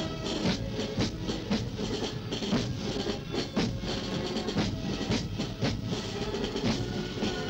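March music played by a band, with a steady drum beat about twice a second under sustained instrumental notes.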